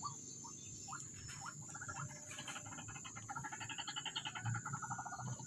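White-breasted waterhen (ruak-ruak) calling: a few short rising notes, then from about two seconds in a fast string of repeated notes that grows somewhat louder.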